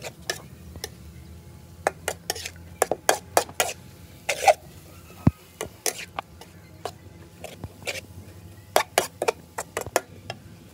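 Metal spatula scraping and clanking against a large metal wok while stir-frying noodles and greens: irregular runs of sharp scrapes and taps, heaviest in two bursts in the middle and near the end.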